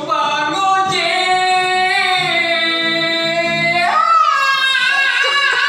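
A singer's voice holding one long high note for about three seconds, then breaking into quick wavering runs that slide up and down in pitch.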